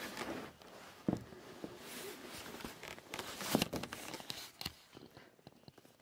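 Scuffling and clothing rustle against the camera with scattered knocks and scrapes on wooden boards, the loudest knock about three and a half seconds in, as a man scrambles in a house cellar he has fallen into.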